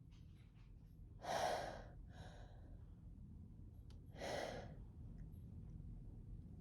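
A woman breathing heavily with an irritated, itchy nose: two loud breaths about three seconds apart, the first followed by a softer one.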